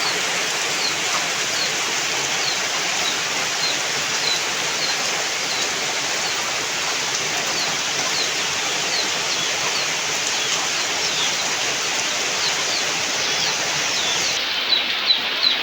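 Steady heavy rain falling, a dense even hiss, with short high chirps repeating every second or so.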